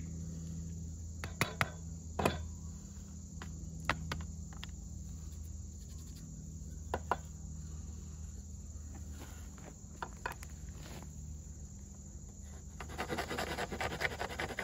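Scattered wooden knocks and clicks as tools and a small water oak fireboard are handled on a wooden bench, then a short rasping scrape near the end as a knife starts cutting into the board. A steady insect drone runs underneath.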